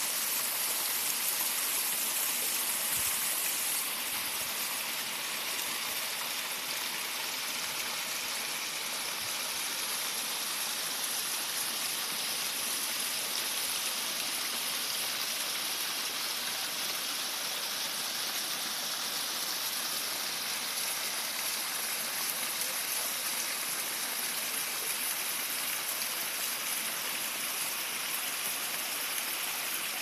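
Small rocky mountain stream and waterfall splashing and cascading over boulders: a steady rush of running water, a little louder for the first few seconds.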